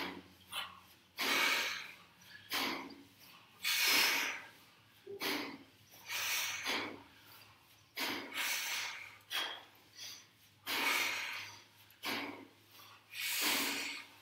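Sharp, hissing exhalations timed to two-handed kettlebell swings, a forceful breath out with each swing, from two people swinging out of step so that the breaths come about every half second to second.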